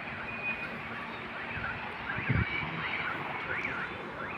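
Electronic vehicle warning tones: a single steady beep at the start, then from about two seconds in a rising-and-falling warbling alarm tone repeating about twice a second. A brief low thump comes about halfway through.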